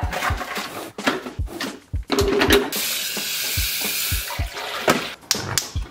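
Water pouring from a glass carafe into the reservoir of a Mr. Coffee drip coffee maker for about a second and a half near the middle, between clicks and clatter of the machine's lid and filter basket being handled.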